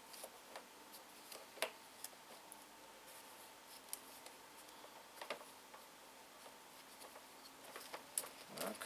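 Faint, scattered clicks and light rubbing of hands turning a plastic trimmer line head (spool) for a Husqvarna 125R brush cutter, as it is fitted and wound up; the sharpest click comes about one and a half seconds in.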